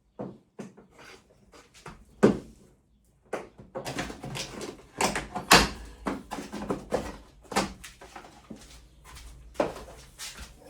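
Irregular knocks, clunks and rattles of parts and tools being handled on a VW T5 van's front end, with a sharp bang a little after two seconds and a busy cluster of clatters around the middle.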